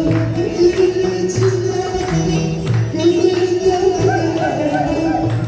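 Live Turkish folk music: a woman sings a melody into a microphone, accompanied by bağlama and a steady percussion beat from a darbuka and a jingled frame drum.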